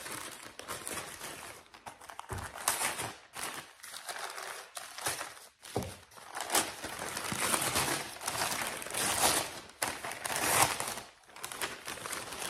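Brown kraft paper wrapping crinkling and rustling in irregular bursts as it is pulled open by hand.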